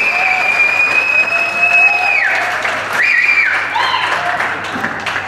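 Audience applauding, with a long high steady whistle-like tone over the clapping and two shorter ones later; the applause dies down near the end.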